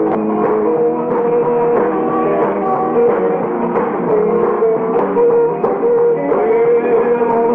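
Live rock and roll band playing, with electric guitar and drum kit, recorded in concert. The recording sounds muffled, with no treble above the upper midrange.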